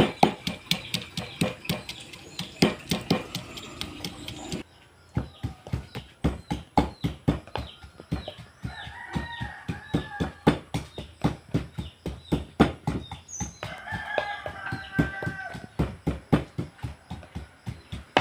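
A pestle pounding moringa leaves in a mortar: regular knocks at about three strokes a second, breaking off briefly a little over four seconds in, then going on. A rooster crows twice behind it, about nine and fourteen seconds in.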